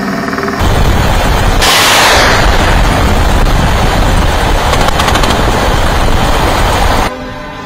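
Rapid automatic gunfire in a long, loud, sustained stream, typical of an attack helicopter's nose cannon firing, over the helicopter's own noise. It stops abruptly about seven seconds in.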